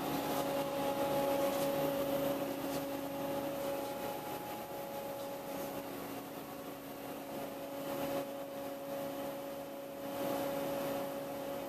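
Steady electric machinery hum in a machine shop: a few steady tones over a constant hiss.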